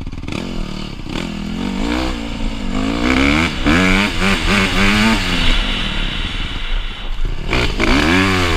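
Honda CRF150R's four-stroke single-cylinder engine revving hard under acceleration, its pitch climbing and dropping several times. It backs off briefly about seven seconds in, then climbs again.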